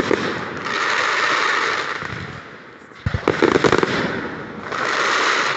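Fireworks display: a volley of rapid sharp bangs, then about two seconds of dense crackling hiss as it fades. The same pattern repeats about three seconds in.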